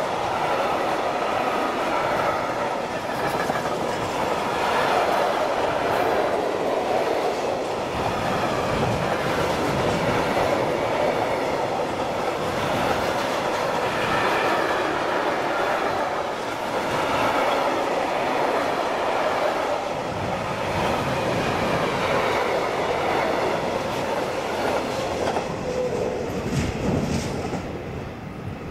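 A freight train of articulated container flat wagons rolling past close by: a steady rumble and clatter of wheels on the rails, dropping away near the end as the last wagon goes by.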